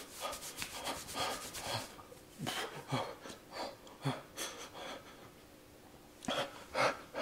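A man breathing hard in short, hissing breaths with brief breathy vocal sounds, his mouth burning from the extremely hot Paqui One Chip Challenge chili chip. A louder breath or gasp comes near the end.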